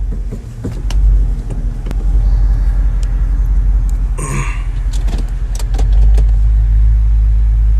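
Car on the move with a steady low drone and scattered knocks and clicks, the noise of a failing wheel bearing whose balls are worn. About four seconds in there is a brief higher-pitched squeak.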